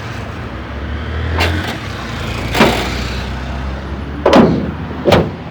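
Chevrolet Chevette engine idling steadily, with a few sharp knocks over it, the loudest about four seconds in.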